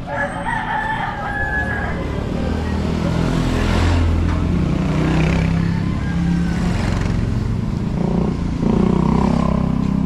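A rooster crowing, at the start and again near the end, over a motorcycle engine running as the bike comes up the narrow street and passes close by.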